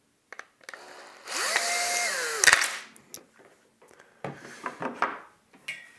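Cordless drill-driver backing out a small screw: its motor whines steadily for about a second, then winds down in pitch and stops with a sharp click. Light clicks and rattles of plastic parts follow as the pedal housing is opened.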